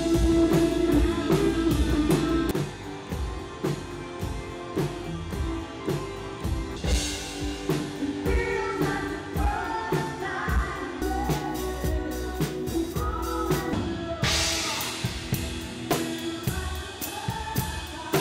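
Live rock band playing: a drum kit keeps a steady beat under electric guitar, and a woman's singing comes in about eight seconds in.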